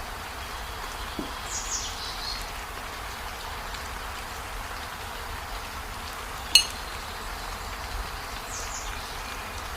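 Steady hiss with a few short, high falling chirps, and one sharp clink about six and a half seconds in, the loudest sound.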